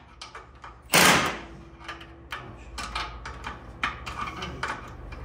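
A loud clunk about a second in, then a string of light, irregular metallic clicks and taps as a wrench and parts are worked at a motorcycle's rear wheel hub and axle.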